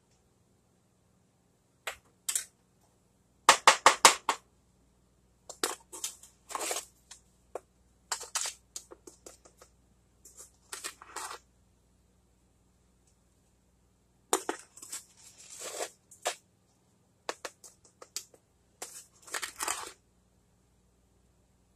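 A measuring cup scooping and scraping granulated sugar in a plastic canister: scattered crunchy scrapes and plastic clicks, with a quick run of sharp clicks about four seconds in, the loudest part.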